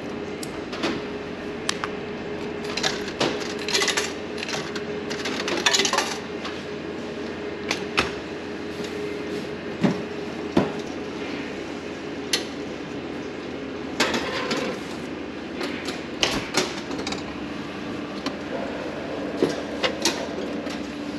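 Retro udon vending machine working through its countdown cooking cycle: a steady machine hum with scattered mechanical clicks and knocks.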